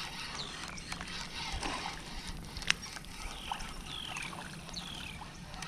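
A hooked crappie being reeled in to the bank on a spinning rod, with faint reel and water sounds as it comes to the surface. A bird gives several short falling chirps, and there is one sharp click about halfway through.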